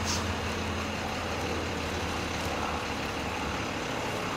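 A vehicle engine idling, a steady low hum.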